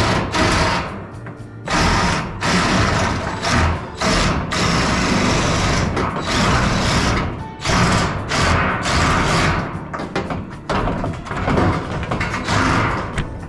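Cordless power shear cutting corrugated steel roofing panel, running in short spurts that start and stop repeatedly as it chews along the sheet, with music playing underneath.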